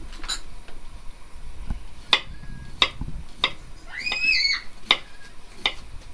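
Kitchen knife slicing a cucumber on a wooden cutting board: a sharp tap of the blade on the board every half second to second and a half, six or so in all. A brief high chirp rises and falls about four seconds in.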